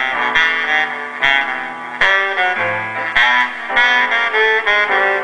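Music with a melody of held notes, played through a homemade double-cone loudspeaker.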